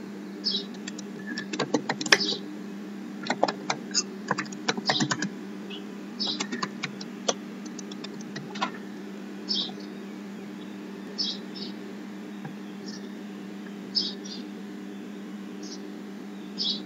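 Computer keyboard being typed on: a quick run of keystrokes in the first five seconds or so, then scattered single clicks, over a steady low hum.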